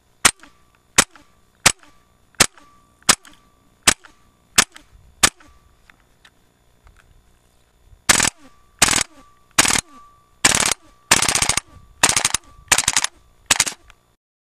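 WE SMG-8 gas blowback airsoft rifle on propane, firing eight single shots with its bolt cycling, about 0.7 s apart. After a pause of about three seconds it fires a string of short full-auto bursts.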